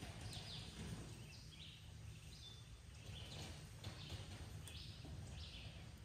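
Faint outdoor ambience: birds chirping in short, repeated calls, about one or two a second, over a low steady rumble of wind on the microphone.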